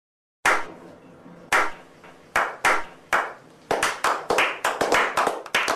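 A slow clap. After a brief silence, single hand claps ring out about a second apart, each with a short echo. A few seconds in, more people join and the claps come faster and closer together, building toward applause.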